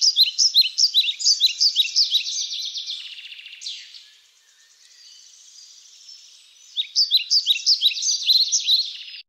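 Bird song: a fast series of high chirps, about six a second, that fades away after about three seconds and starts up loudly again about seven seconds in, cutting off just before the end.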